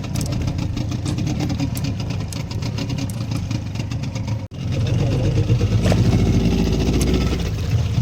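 Fishing boat's engine running steadily. It cuts out for an instant about halfway through and comes back louder and heavier.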